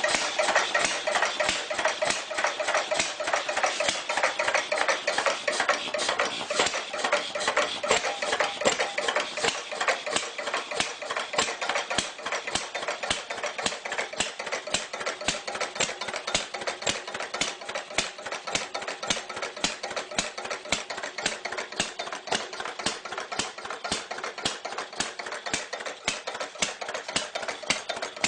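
A machine running steadily with a rapid, even clatter of small knocks, like a small engine idling.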